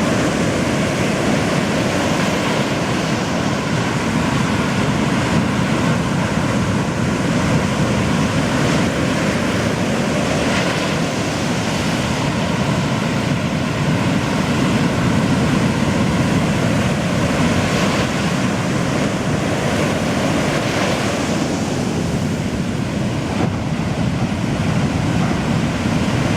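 Steady, loud rush of breaking ocean surf, with wind noise on the microphone.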